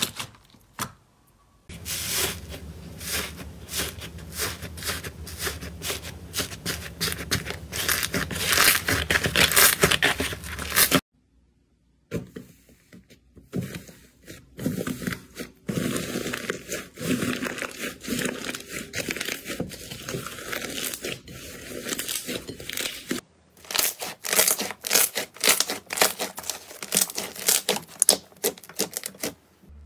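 Slime being squeezed, pressed and broken up by hand: dense crackling, popping and tearing of clear jelly slime, then the dry cracked crust of a blue slime crunching as the fingers break it, then thick yellow slime being poked and pressed. The sound stops briefly about a second in and again about eleven seconds in, and a low steady hum sits under the first clip.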